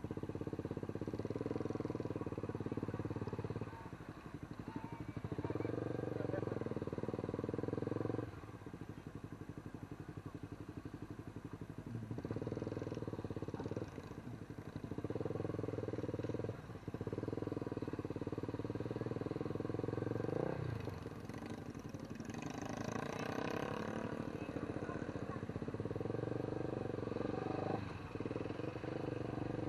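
A motor vehicle's engine running, getting louder and quieter every few seconds.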